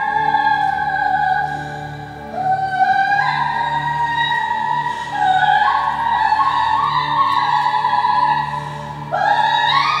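Eerie music: a high, wailing, voice-like tone that slides slowly downward, steps up in pitch a few times and swoops upward near the end, over a low pulsing drone.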